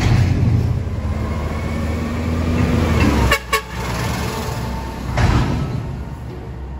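Side-loading garbage truck driving past, its diesel engine running with a low rumble.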